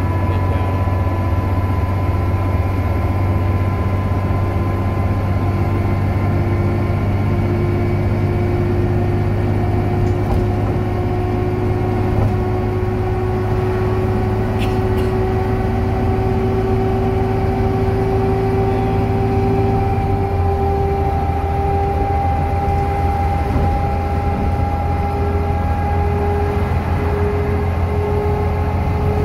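Inside a DAF DB250 Lowlander double-decker bus under way: a loud whine from the axle, climbing slowly in pitch as the bus gathers speed, over the steady low drone of the engine.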